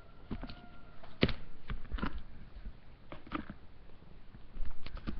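Close, irregular rustles, scuffs and taps of cats and a hand moving on a fabric pet bed, with a sharper knock a little over a second in and a louder burst of rustling near the end. A faint thin tone sounds for about a second near the start.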